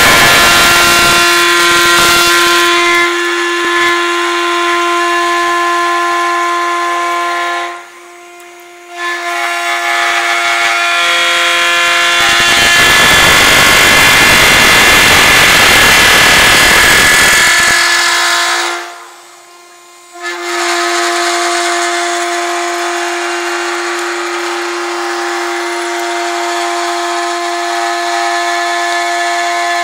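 CNC wood lathe turning a wooden stair baluster: a steady motor whine with the hiss of the cutter shaving the spinning blank, the cutting loudest around the middle. Twice the sound drops away briefly, a little over a quarter of the way in and again about two-thirds through.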